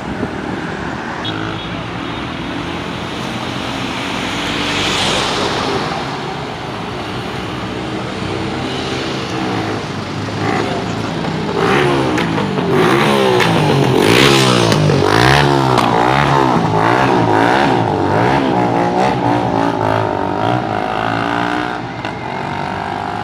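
Motor traffic passing close by, several engines rising and falling in pitch. A motorcycle revs through, loudest a little past halfway.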